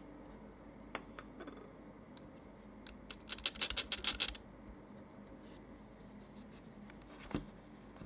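Plastic keyboard parts being handled: the AJAZZ 308i's removed space bar keycap and its stabilizer, giving a few light clicks about a second in, a quick run of scratchy rattling clicks a little past the middle, and one single click near the end.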